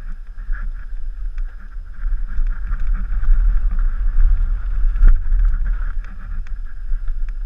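Downhill mountain bike riding over rough trail: a steady deep rumble with tyre noise and frequent clicks and rattles from the bike, and one sharp knock about five seconds in.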